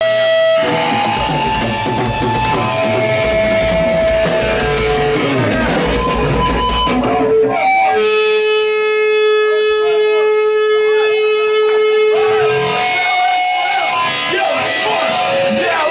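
Heavy rock music with electric guitar. About eight seconds in, one long note is held for several seconds before the full band comes back in.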